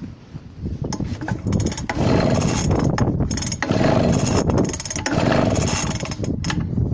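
Suffolk Punch mower's small petrol engine being pulled over on its starter cord three times, about a second per pull, turning over without firing: the engine won't start despite a good spark.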